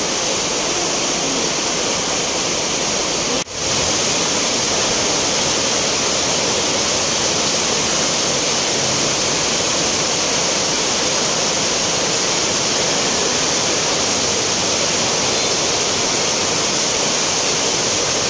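Heavy tropical downpour: a dense, steady hiss of rain pouring down. It cuts out for an instant about three and a half seconds in.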